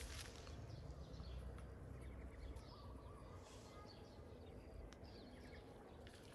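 Faint outdoor ambience with a low steady background noise and small birds chirping softly now and then.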